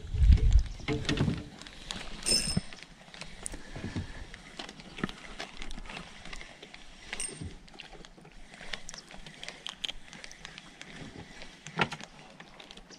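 Scattered light clicks and knocks of fishing tackle being handled in a small aluminium boat, with a low rumble in the first second or so and a brief high chirp about two seconds in.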